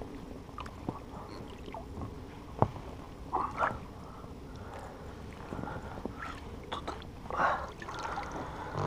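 Water splashing and sloshing at the side of an inflatable boat as a small pike is gripped by hand and lifted out, with scattered light knocks and one sharp knock about two and a half seconds in.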